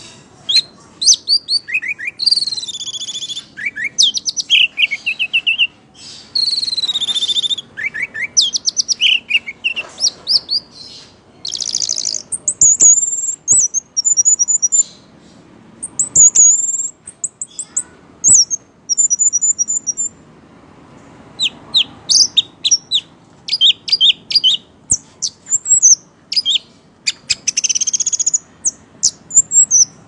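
Caged orange-headed thrush singing a long, varied song in full voice: quick phrases of high whistles, fast trills and runs of repeated short notes, with brief gaps between phrases.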